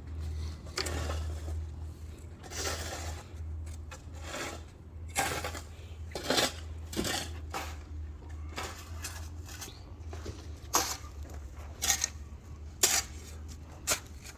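Irregular metal clinks and knocks from tools and materials being handled while concrete forms are framed, over a steady low hum.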